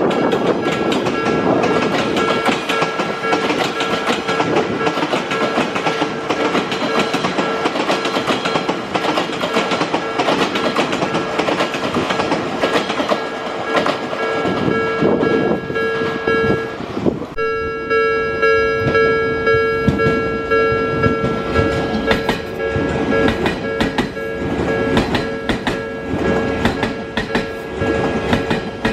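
Japanese level-crossing warning bell ringing steadily while a train passes over the crossing, its wheels clattering over the rail joints. The bell's tone breaks briefly partway through and resumes with a second, slightly higher tone.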